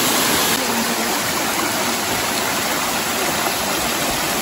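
Small mountain stream running over rocks and stones: a steady rush of flowing water.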